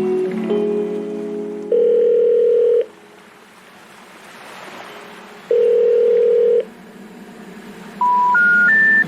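Electronic beep tones over music: sustained chords fade out early on, then two long steady beeps on the same pitch, then three short beeps each higher than the last near the end.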